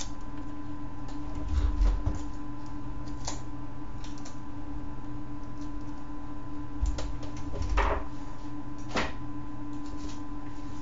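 Sellotape being pulled off its roll into short pieces: a few brief rips, the longest about two-thirds of the way through, among dull handling knocks, over a faint steady hum.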